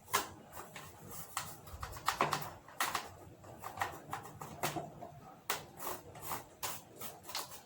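Brush scrubbing dust off an electric fan: irregular scrapes and light taps of the bristles against the fan's parts.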